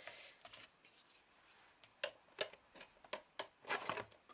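Craft tools and materials being handled and set down on a work table: soft rustling, then a series of sharp clicks and taps, busiest near the end.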